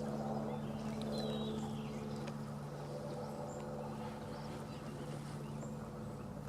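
Steady low hum holding a few fixed pitches, like a running motor, with a short, high, falling chirp about a second in.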